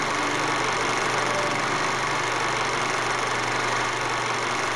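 Steady hiss with a low hum underneath, unchanging throughout, with no distinct events.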